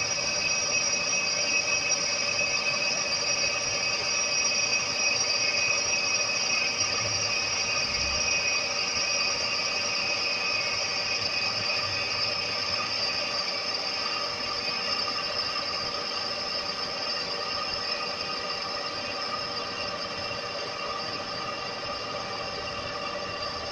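Metal lathe taking a facing cut across a spinning aluminium pulley blank, the tool feeding in toward the centre. It gives a steady high-pitched squealing whine made of several tones, which slowly gets quieter as the cut goes on.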